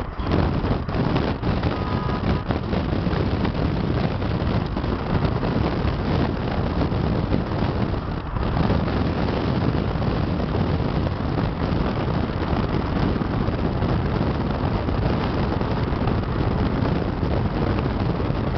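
Steady rush of wind and road noise inside a car travelling fast on a highway, with wind buffeting the microphone.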